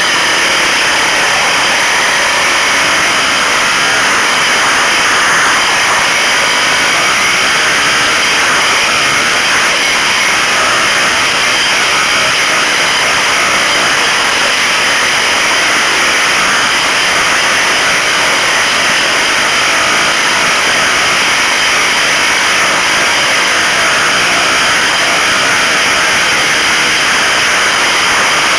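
Off-road dirt bike engine running under way on a hillside trail, heard as a steady, loud, rushing noise mixed with wind over the microphone.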